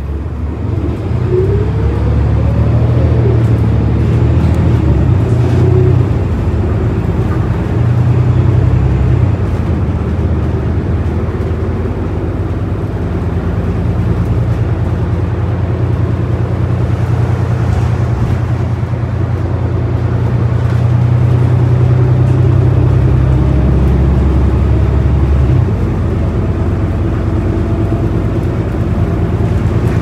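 Cabin of a New Flyer Xcelsior XD40 diesel bus under way: a low, steady drone from its Cummins L9 engine and Allison automatic transmission. It grows louder about a second in, with a short rising whine as the bus picks up speed, and drops back near the end.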